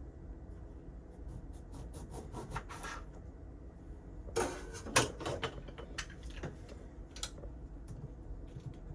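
Kitchen prep handling noise: scattered small clicks, taps and rubbing, with a quick run of ticks and then two louder knocks about four and a half and five seconds in.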